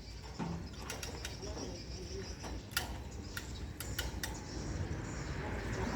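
Scattered light clicks and taps at irregular intervals, over faint steady insect chirring; a low rumbling background grows louder near the end.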